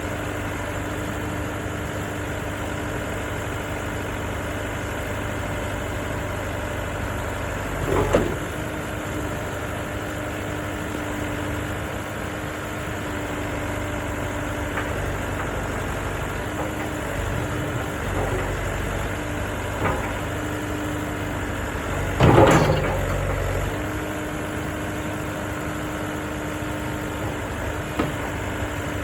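JCB 3CX backhoe loader's four-cylinder diesel engine running steadily at idle. Two loud clunks come about eight seconds in and again near twenty-two seconds, with a few lighter knocks later.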